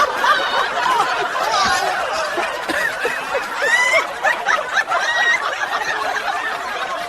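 Many people laughing and chuckling together, a steady swell of overlapping laughter.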